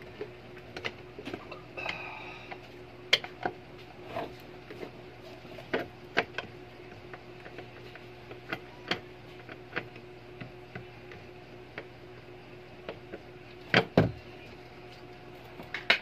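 Irregular clicks and knocks of hand work on the washing machine's plastic tub base and gear case hub, with two louder knocks in quick succession near the end, over a steady low hum.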